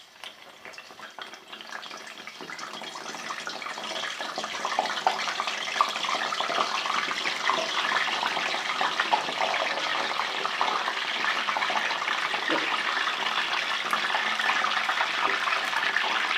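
Jalebi batter frying in hot ghee: a crackling sizzle that builds up over the first five seconds or so as more batter is piped into the pan, then holds steady.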